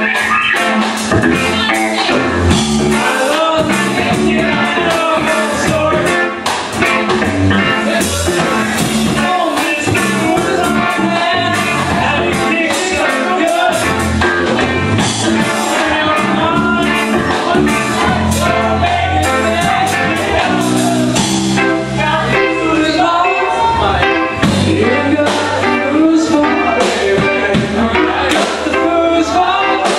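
Rock music with a singing voice and a steady drum beat.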